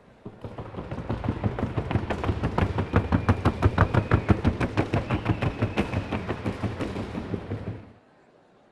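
A Colombian trocha mare's hooves striking the wooden sounding board (tabla) in a fast, even patter of about eight to ten beats a second. It is loudest in the middle and stops abruptly near the end.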